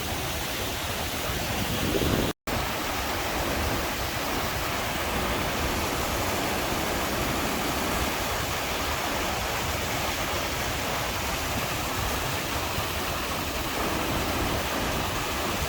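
Waterfall, water rushing steadily, with a momentary dropout about two seconds in.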